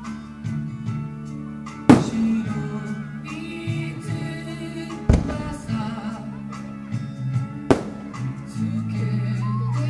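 Music with a singing voice, broken by three firework shell bursts: the loudest about two seconds in, the others around five seconds and nearly eight seconds in, each with a short echoing tail.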